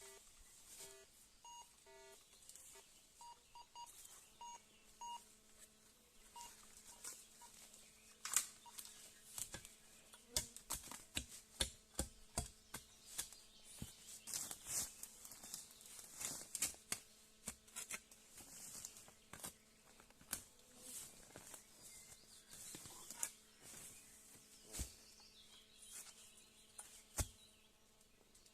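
Metal detector giving short beeps over a buried metal target in the first few seconds, over a faint steady hum. From about eight seconds in, a shovel digging into the soil: many sharp, irregular chops and scrapes.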